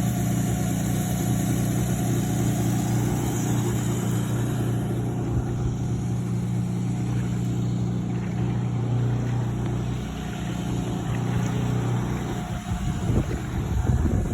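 An engine running at a steady speed, with a slight dip about ten seconds in, then irregular knocks and rumbling near the end.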